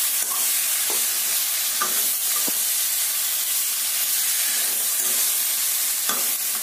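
Cauliflower and potato pieces sizzling in a masala in a kadai. A metal spatula stirs them, scraping and knocking against the pan a few times.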